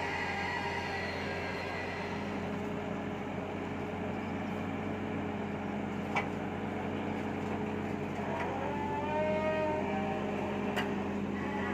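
Caterpillar excavator's diesel engine running steadily under load while it lifts a steel formwork panel. There is a sharp metallic clank about six seconds in and another near the end, and a wavering whine rises and falls around eight to ten seconds in.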